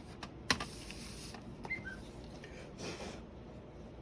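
Quiet handling noises from laptop parts being moved by hand: a sharp click about half a second in, then short rustles and a faint squeak.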